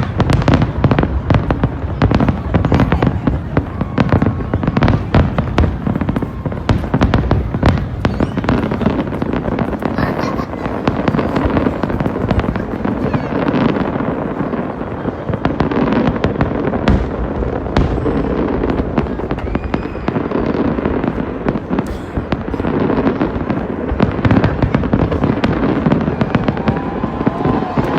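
Fireworks display: a dense, continuous run of bangs and crackles from aerial shells bursting overhead.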